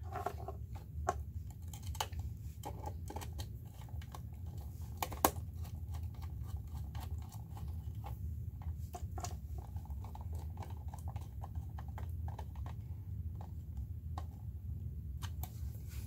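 Scattered small clicks and taps of a screwdriver and wire being worked into a relay socket's screw terminal, with one sharper click about five seconds in, over a low steady hum.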